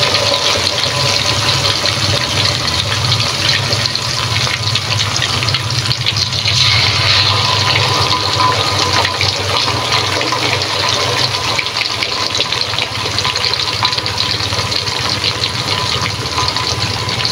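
Marinated spiced chicken pieces deep-frying in hot oil in a wok: a steady sizzle with dense fine crackling.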